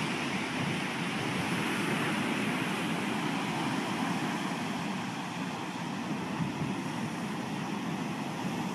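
Ocean surf breaking and washing onto a sandy beach, a steady rush of waves.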